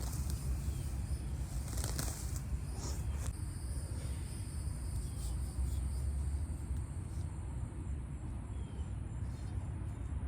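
Wind buffeting an outdoor microphone as a steady low rumble, with a few brief rustles about two and three seconds in.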